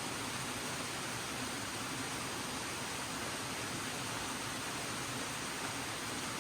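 Steady rainfall, an even hiss of rain with no distinct drops or changes.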